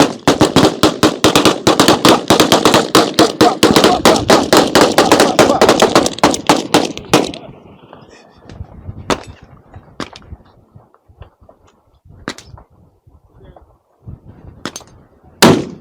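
Several guns firing rapidly at once, shots coming about six or seven a second for roughly seven seconds. After the volley stops, a few scattered single shots follow, the last one near the end the loudest.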